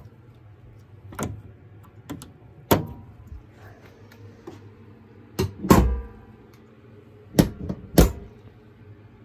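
Car hood being lowered and shut: a series of sharp metallic knocks and clunks, with the heaviest, deepest thump about six seconds in and two more sharp knocks near the end.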